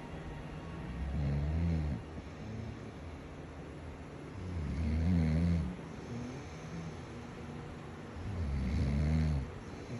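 A sleeping person snoring: three low, rumbling snores about a second long each, coming every three to four seconds.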